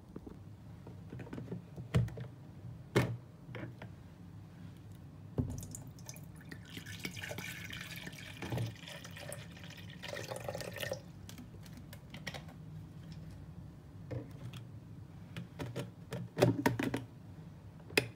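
Water poured from a bottle into a plastic electric kettle for about four seconds midway, with sharp clicks and knocks of the kettle lid and bottle being handled before and after.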